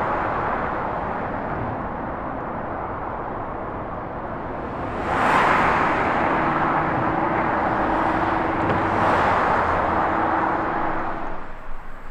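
Road traffic: cars driving past on a multi-lane road, their tyre and engine noise swelling louder about five seconds in and again about nine seconds in, with a steady hum under the later passes. The sound cuts off abruptly near the end.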